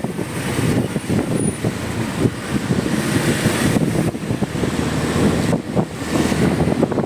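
A motorcycle on the move, heard as heavy wind buffeting on the microphone over road and engine noise, strongest in the low range and fluctuating rapidly.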